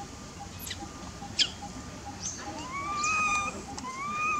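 Baby long-tailed macaque crying: two sharp, falling squeaks, then from about halfway through two drawn-out whining cries that rise and hold their pitch.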